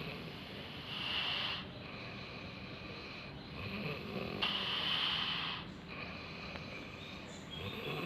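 A person snoring in sleep: two snores about three and a half seconds apart, each lasting about a second.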